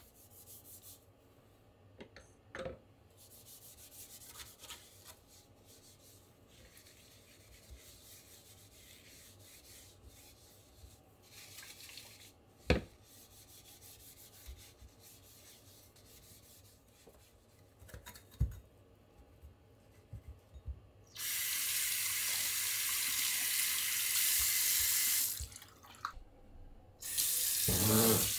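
Quiet scrubbing and handling at a washbasin with a few sharp knocks, then the basin tap turned on and water running steadily into the sink for about four seconds, shut off briefly, and turned on again near the end.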